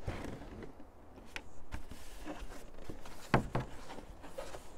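Handling noise as a moulded plastic packing tray is lifted out of a cardboard box: light scraping and rustling with scattered clicks, and two sharp knocks about three and a half seconds in.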